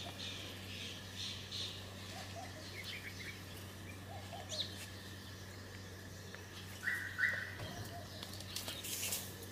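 Small birds chirping on and off, with two sharper calls about seven seconds in, over a steady low hum.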